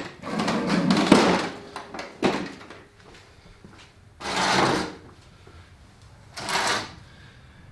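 Handling noises as a walk-behind lawn mower is tipped back onto its wheels from its side on a concrete floor beside plastic crates. There is a long scraping rattle about a second in, then a sharp knock, then two shorter scrapes.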